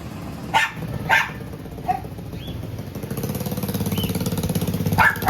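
A dog barking in short single barks, three in the first two seconds and again near the end, over a steady low engine hum that grows louder from about halfway.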